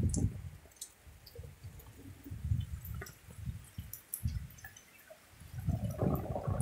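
Heavy rain: scattered drips and splashes over irregular low rumbling on the microphone that swells and fades, growing louder near the end.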